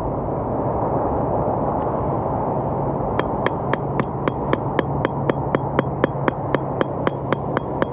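Rapid metal-on-metal hammering, about four sharp ringing strikes a second, starting about three seconds in, as a drill bit is driven into the metal of a wheel hub to punch a hole. Steady background noise underneath.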